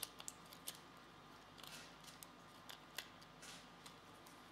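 Faint, scattered clicks and taps of the plastic 3D printing pen housing being handled and fitted back together around its small geared motor, the loudest about three seconds in.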